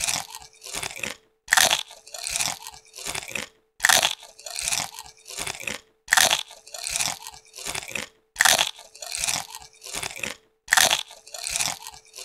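Potato chips being bitten and chewed close up: a loud crisp crunch as a chip is bitten, then about three smaller crunches as it is chewed. The cycle repeats every two seconds or so, five bites in all, over a faint steady hum.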